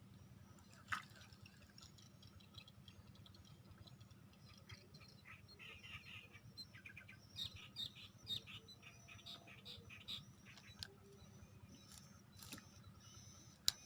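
Small birds chirping in quick, short calls, thickest through the middle, over a faint low hum. A sharp click about a second in and another near the end.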